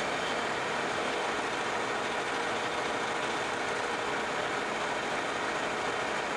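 Vertical milling machine roughing a pocket with a 3/4-inch end mill: a steady, even whir of spindle and cutting, in footage sped up four times.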